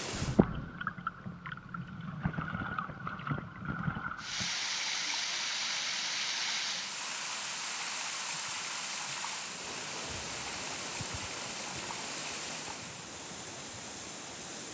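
Steady rush of flowing stream water. For the first four seconds the rush drops away and a run of irregular knocks and thumps takes its place, the sharpest about half a second in.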